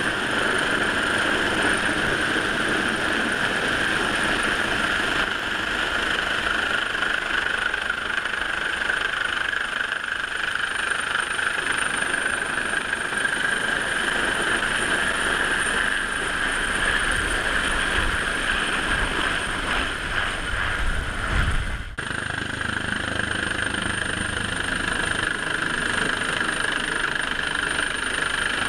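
Coastguard AW139 helicopter hovering close overhead: steady rotor and turbine noise with a constant high whine, mixed with the lifeboat's engines and wake. A low rumble of downwash buffeting builds and cuts off in a brief dropout about 22 seconds in.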